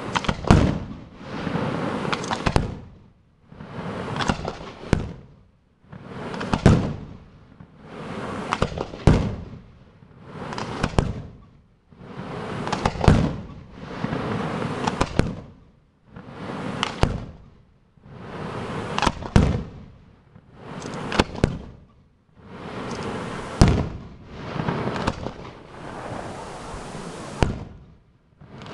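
Aerial firework shells bursting in quick succession, a sharp bang about every two seconds, each trailing off in a rush of noise.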